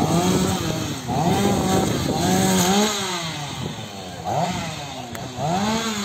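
Two-stroke chainsaw running, its engine revving up and dropping back again and again, about once a second.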